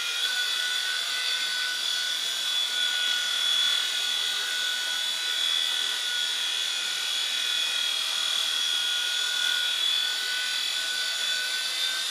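Small indoor RC helicopter's electric motor and rotors whining in flight: a steady high whine whose pitch wavers slightly as the throttle shifts.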